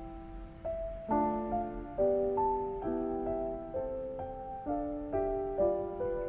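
Gentle background piano music, single notes and chords struck one after another, about two a second, each fading away.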